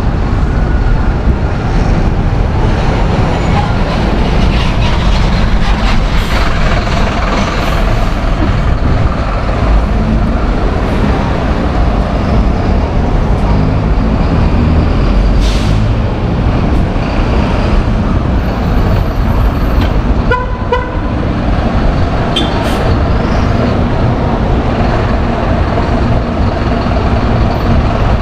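City bus engines running close by in street traffic, a steady low rumble throughout. A brief horn toot sounds about twenty seconds in, and there are a couple of short hisses of air.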